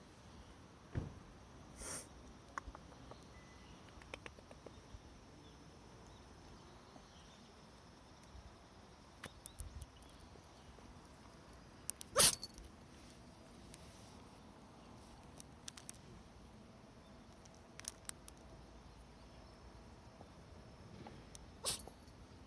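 Cat sneezing: a few short, sharp sneezes, the loudest about halfway through, with small faint clicks between them.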